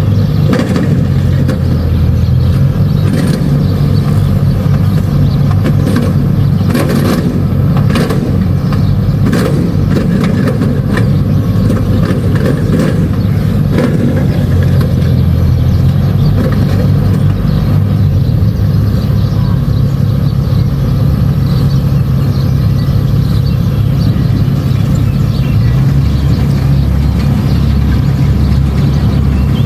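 Kubota DC-70 Plus combine harvester's diesel engine running steadily under load while harvesting rice, with scattered clattering knocks from the machinery in the first half.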